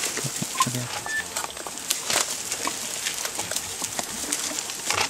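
Young African elephant browsing on a thorny tree: twigs cracking and branches rustling as its trunk pulls at them, in short irregular snaps. Two brief bird chirps come about half a second and a second in.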